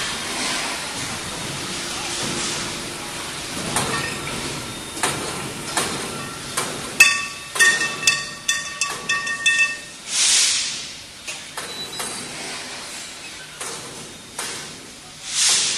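Galvanized steel pipes in a lifted bundle knocking against each other and against the stack, a run of sharp metallic clanks through the middle, several of them leaving a ringing tone. Two short rushing hisses follow, one near the end.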